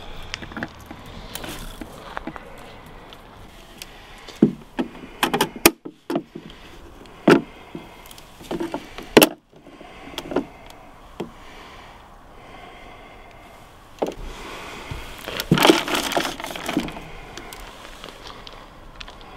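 Scattered knocks, clicks and rattles of a plastic Waverunner bait boat being handled and its hopper loaded with particle bait and boilies, coming in several bursts with the busiest stretch about two-thirds of the way through.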